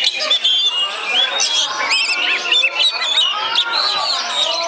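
Caged Oriental magpie-robins (kacer) singing over one another in a contest, a dense chorus of fast whistled phrases and trills, with shouting voices underneath.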